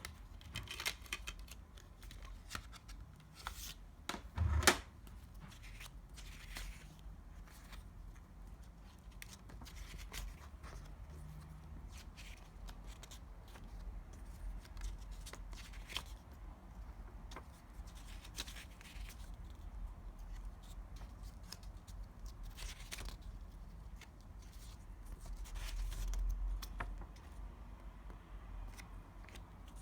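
A CD and its packaging being handled and opened by hand: scattered rustles, tearing and small clicks, with one louder knock about four and a half seconds in.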